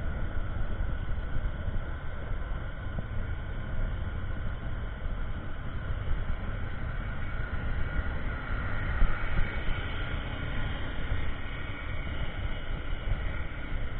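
Motorcycle running steadily at riding speed, with heavy wind rumble buffeting the microphone over the engine and road noise.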